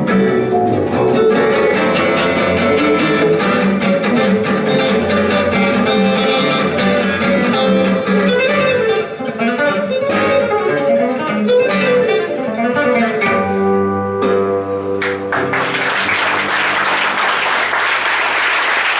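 Gypsy-jazz trio of two acoustic guitars, lead and strummed rhythm, with double bass, playing a fast tune that closes on held final notes. About fifteen seconds in the music gives way to audience applause.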